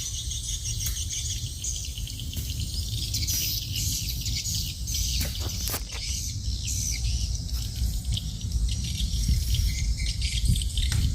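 Insects chirping steadily in a high chorus over a low rumble, with a few clicks or rustles around the middle.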